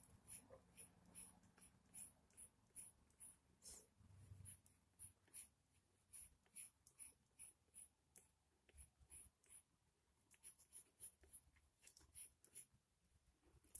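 Faint scratching of a colored pencil on an index card, in short strokes about two a second, as an eyebrow is drawn.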